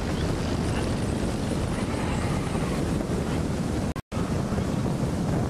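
Wind buffeting the microphone of a fast-moving camera: a steady low rushing rumble, which cuts out for an instant about four seconds in.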